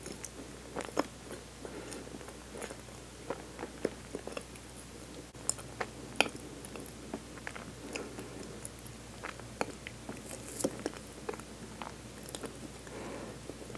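A person chewing a bite of Hakata Torimon, a soft baked manju with a white bean-paste filling, with many small, irregular wet mouth clicks. Near the end comes a soft tearing as the bun is pulled apart.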